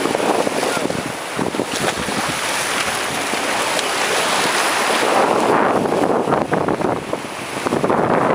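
Sea surf washing over and splashing around rocks at the shoreline, a steady rushing of water, with wind buffeting the microphone.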